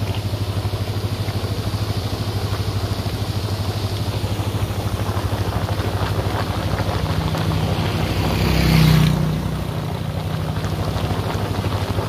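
A small engine running steadily with a fast, even throb. About nine seconds in it swells louder with a brief rushing noise, then settles back.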